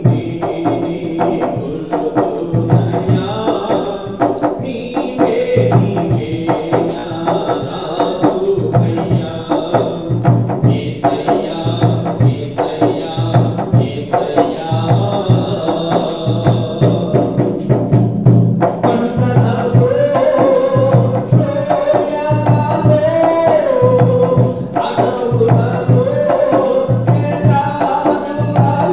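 Telugu Christian devotional song: music driven by a steady tambourine and drum beat, with sustained melodic lines over it. A new wavering melody line comes in about two-thirds of the way through.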